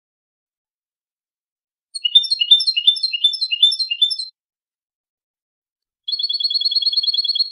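European goldfinch song phrases separated by dead silence: about two seconds in, a quick varied twittering phrase of high notes lasting about two seconds, then near the end a fast, even high trill.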